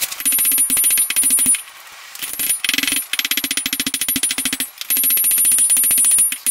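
Hand hammer forging a red-hot pattern-welded steel blade on an anvil: a rapid run of metal-on-metal blows with the anvil ringing, broken by a short pause about a second and a half in.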